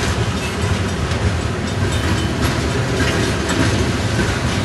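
Freight train cars, a tank car and covered hoppers, rolling past through a grade crossing: a steady rumble of steel wheels on rail with faint irregular clicks.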